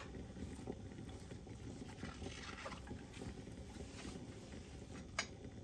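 Soup simmering in a glass pot, faint bubbling and crackling over a low steady noise. A single sharp click about five seconds in.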